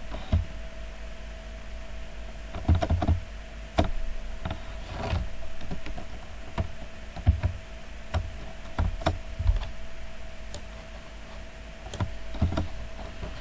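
Computer keyboard keys tapped at irregular intervals while code is edited, over a faint steady hum.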